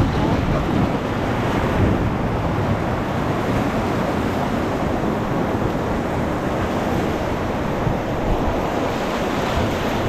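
Whitewater rapids rushing around an inflatable raft, a steady, even rush of water with wind buffeting the camera's microphone.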